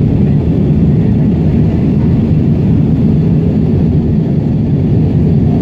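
Steady, deep cabin noise of an Airbus A320 in flight: jet engine and airflow rush heard from a seat beside the wing, even throughout with no change in pitch or level.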